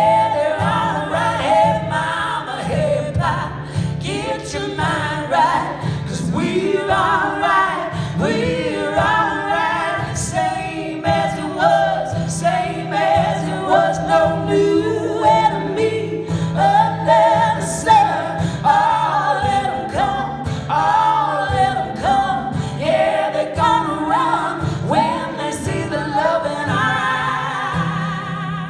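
Live performance of a folk-soul song: voices singing together over a steady low sustained note.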